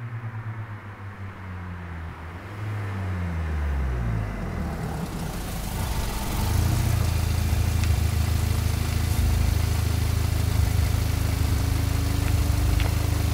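The 2006 VW Passat B6 2.0T, fitted with a catless 3-inch downpipe and a K&N drop-in filter, coming up close: its engine note falls as it slows. About six seconds in it turns into a loud, steady low exhaust drone with tyre noise as the car rolls right up beside the camera.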